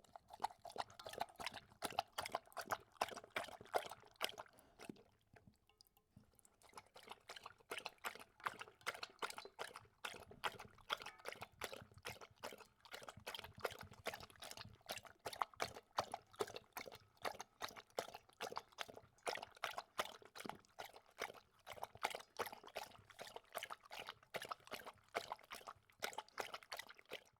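A dog lapping water: a steady run of quick wet laps, about three a second, with a short pause about five seconds in.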